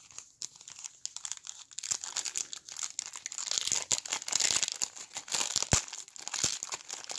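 The plastic wrapper of a 1990 NBA Hoops trading card pack crinkling and tearing as it is ripped open by hand: a dense run of irregular crackles, with a couple of sharper clicks in the second half.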